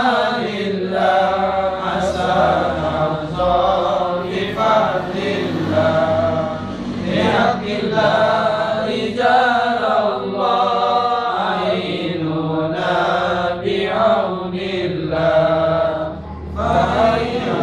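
A group of men chanting an Islamic devotional recitation together, in long melodic phrases without pause.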